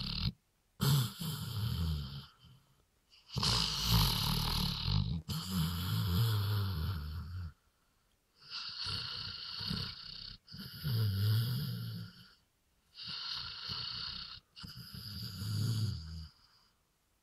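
Weimaraner snoring loudly in deep sleep, a sawmill-like run of rattling snores, each one to four seconds long with short silent pauses between breaths.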